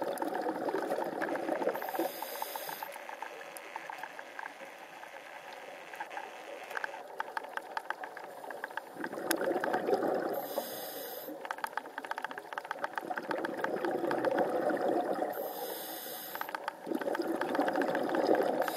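Underwater scuba breathing through a regulator: slow breaths swelling and fading, with short hissing bursts of exhaled bubbles a few times, over a faint crackle of fine ticks.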